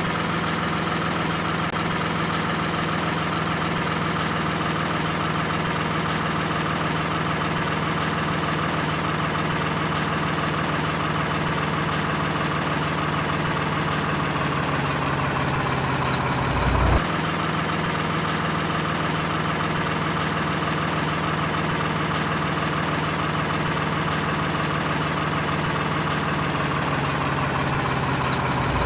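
Steady excavator engine sound, idling at an even pitch that steps down slightly about halfway through, with one brief low thump a few seconds later.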